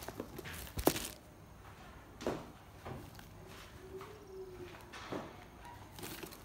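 Handling noise from a sneaker being turned over in the hand above a cardboard shoebox: scattered knocks and rustles, the sharpest and loudest about a second in. A faint short tone rises and falls around the middle.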